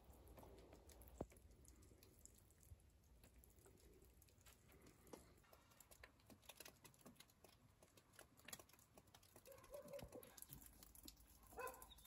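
Near silence with faint, irregular light ticking of falling snow landing nearby, the ticks coming more often in the second half.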